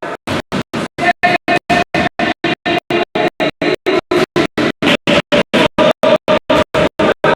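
Music with a guitar-like sound, chopped into short, even pulses about five times a second with silent gaps between them.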